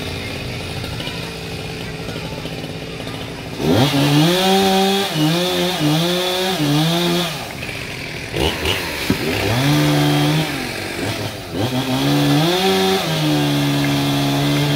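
Two-stroke chainsaw idling, then revved up about four seconds in and held at high speed, its pitch wavering up and down as it works. It drops back to a lower speed briefly twice and revs up again each time.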